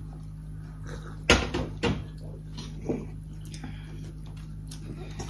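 Tableware knocks and clinks at a meal: one sharp knock about a second in, then a few lighter clicks, over a steady low hum.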